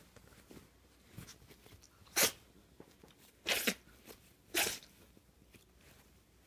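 A puppy sneezing three times in quick succession, short sharp sneezes a little over a second apart, part of an uncontrollable sneezing fit that the owner puts down to allergies.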